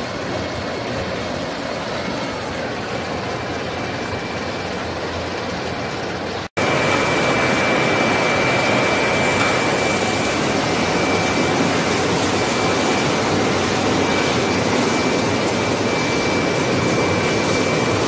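Sawmill line machinery running with a steady, dense mechanical noise. About six seconds in it cuts abruptly to a louder stretch with a thin steady high whine, as a squared log feeds through the saw line on a chain conveyor with spiked feed rollers.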